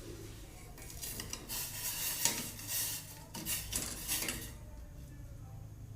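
A spoon scraping and stirring in a cooking pot of boiling water: a run of uneven scraping strokes lasting about three and a half seconds, then stopping.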